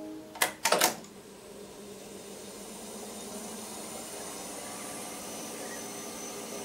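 Studer A80/R reel-to-reel tape recorder: playback stops with two sharp clicks from the transport buttons about half a second in. The reels then spool up into fast-forward winding, a steady whirr that builds slightly, running on freshly replaced tension-roller bearings.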